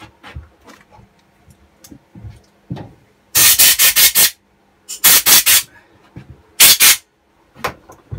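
Short loud blasts of compressed air from a blow gun, clearing drilling swarf off a freshly drilled metal part: three hissing bursts, the first about a second long and made of several quick pulses, starting about three seconds in. Light handling knocks and clicks come before and between them.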